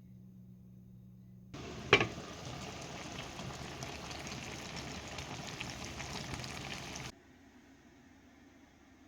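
Food cooking on a stove, a steady bubbling hiss with small crackles, with one sharp click about half a second after it starts. The sound starts and stops abruptly, leaving a faint hum.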